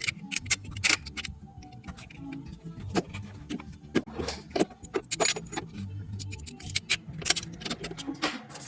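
Hand tools and metal parts clinking and knocking in irregular sharp clicks, as during work on an engine bay, over a low hum.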